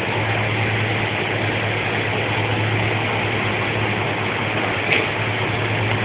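Steady low hum under an even hiss, with a single light click about five seconds in as the metal Meccano joint is picked up.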